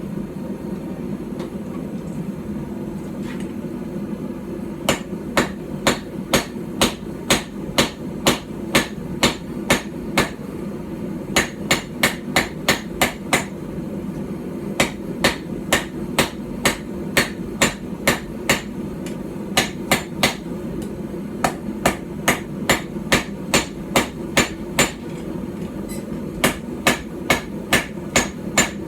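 Small hand-forged hammer, about 12 ounces, striking steel on a small iron stump anvil while forging a knife: sharp ringing blows, about two to three a second in runs broken by short pauses, starting about five seconds in over a steady low hum.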